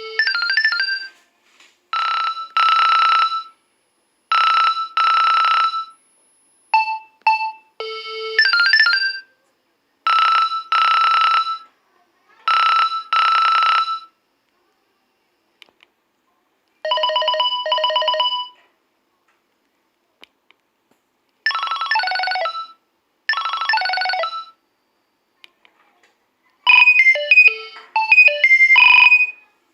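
Nokia 2300 mobile phone ringtones playing in short snatches of a second or two each, separated by brief pauses, with several different electronic melodies in turn.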